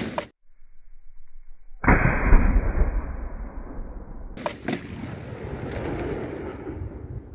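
The tail of a 12-bore double-barrel shotgun blast, then about two seconds later its echo rolls back off the hillside: a sudden loud rumble that fades slowly over several seconds. Two sharp clicks come about halfway through.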